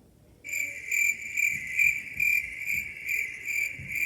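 Crickets chirping: a steady high-pitched trill that starts about half a second in and pulses a little more than twice a second.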